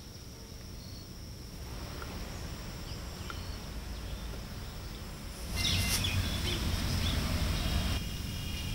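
Outdoor garden ambience: low wind rumble under a steady high insect buzz, with a few brief bird chirps. It gets louder about two-thirds of the way in.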